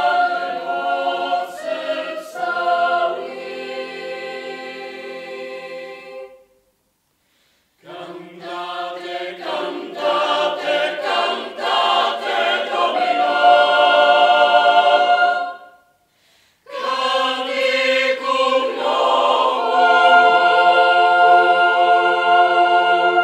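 Mixed youth choir singing a cappella in three phrases, broken by brief silences about six and a half and sixteen seconds in. The last phrase ends on a held chord.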